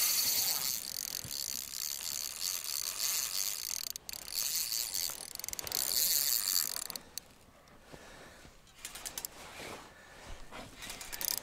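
Spinning reel rattling and clicking under the load of a large hooked pike, as the drag gives line and the reel is worked. It is loud and continuous for about seven seconds, then drops to scattered clicks.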